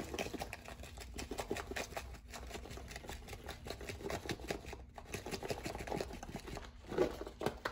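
Plastic spice shaker jar of taco seasoning being shaken upside down: rapid rattling clicks, with a few brief pauses.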